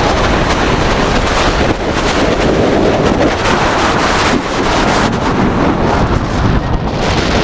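Heavy wind rushing over the microphone of a rider's camera on a launched steel roller coaster, as the train speeds along the launch track and up the tall tower.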